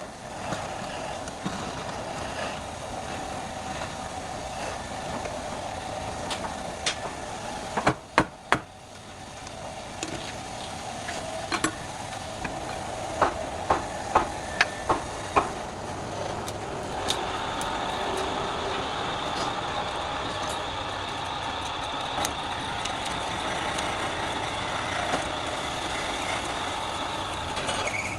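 Wood lathe running steadily, with a handful of sharp knocks about a third and half of the way through. A higher steady whine joins the hum a little past halfway.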